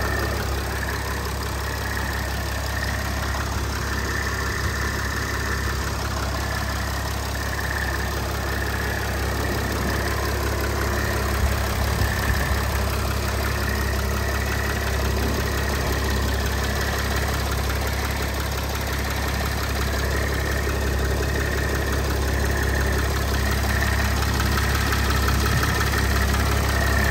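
Mercedes-Benz Sprinter's 3.0L V6 turbo diesel idling steadily, heard close up at the open engine bay, with a brief knock or two about halfway through.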